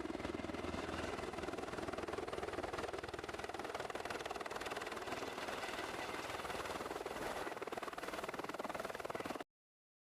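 A small motor running with a steady, fast buzz, then cut off abruptly near the end.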